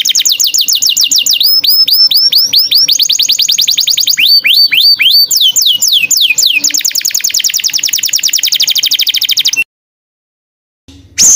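Small songbird singing a loud, fast run of rapid trills and quick down-slurred whistled notes, switching to a new trill every second or two. The song breaks off into silence for about a second near the end, then a fresh trill begins.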